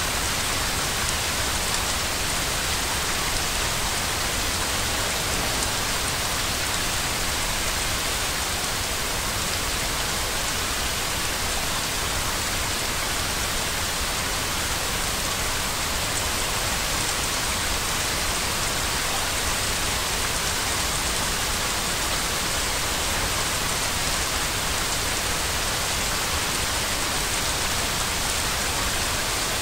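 Steady, unchanging white-noise hiss, heavier in the high range, played as a soothing sleep sound for babies.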